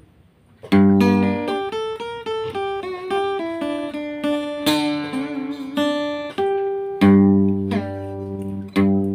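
Acoustic guitar played solo as a song introduction. It opens about a second in with a strummed chord, goes on with a plucked single-note melody with a few wavering, vibrato notes in the middle, and ends with two more full chords strummed near the end.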